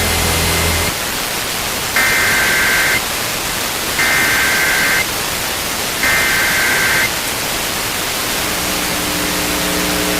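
Three bursts of an Emergency Alert System SAME header, about a second each and two seconds apart, a buzzy two-tone digital warble heard over heavy radio receiver static. The header marks the start of a weather alert. A low steady hum comes in near the end.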